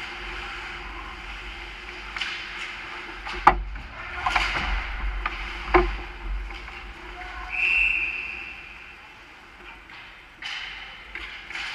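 Ice hockey play close to the goal: skates scraping the ice and sharp cracks of stick and puck. The loudest crack comes about three and a half seconds in and another knock about two seconds later. About halfway through there is a short, high, steady whistle lasting under a second.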